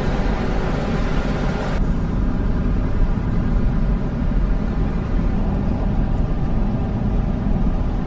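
Steady road and engine rumble of a moving car, heard from inside the cabin. The higher hiss drops away about two seconds in.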